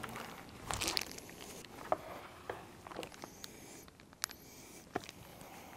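Faint handling noises: a short rustle about a second in, then a scattered few sharp clicks and taps.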